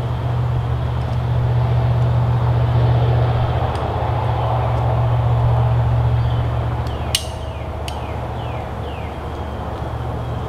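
A steady low hum runs throughout, with a few faint high chirps and a single sharp click about seven seconds in as the climber works his gear at the climbing stick.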